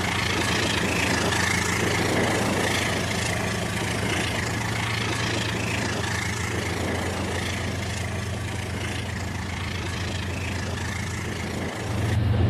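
Rail King battery-powered toy train running on its plastic track: a steady electric motor hum with fast rattling from the wheels and track, growing louder just before the end.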